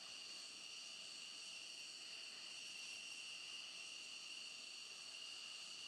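Faint, steady high-pitched whine of an F-16 fighter's turbofan engine idling on the flight line, several pure tones held without change over a light hiss.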